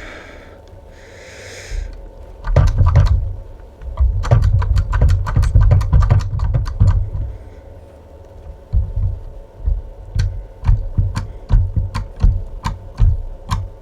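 Hand cable crimper with interchangeable dies being worked on a 25 mm² battery cable lug: a run of sharp clicks and low knocks in bursts from about two seconds in, as the tool is pumped and the lug repositioned between the dies.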